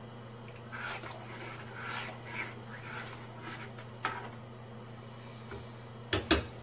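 Ladle stirring thick peanut sauce in a pan, soft swishing over a steady low hum, with a click about four seconds in and two sharp knocks near the end.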